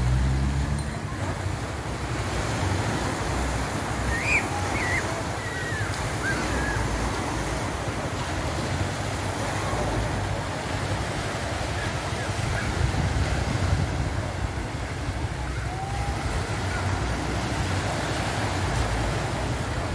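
Sea waves washing steadily onto a sandy beach, with wind rumbling on the microphone. A few faint short chirps sound about four to six seconds in.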